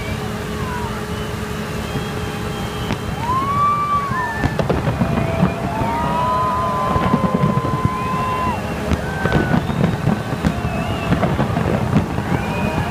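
Fireworks going off along a skyscraper, a rapid, dense run of bangs and crackles that thickens from about four seconds in over a steady crowd rumble, with several long gliding tones above.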